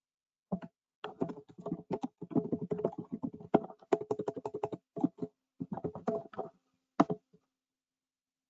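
Typing on a computer keyboard: a quick, irregular run of key clicks that stops about a second before the end.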